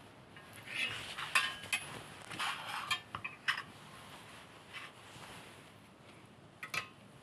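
Pliers working a length of stiff metal wire: a run of metallic clinks and scrapes for the first few seconds, then a few scattered clicks, two close together near the end.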